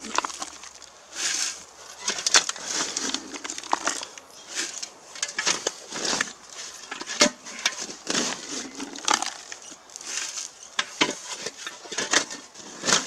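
A small bucket scraping and scooping loose, gravelly dry soil out of a dug hole: repeated irregular crunches and scrapes of dirt and grit against the container.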